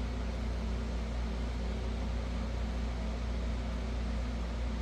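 Steady mechanical hum with an even hiss, unchanging throughout: the running background noise of the workshop, such as a fan.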